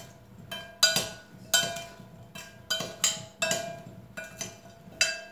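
A metal spoon stirring and tossing potato wedges in a glass mixing bowl, clinking against the glass in repeated irregular knocks, roughly two a second, each with a short ringing tone.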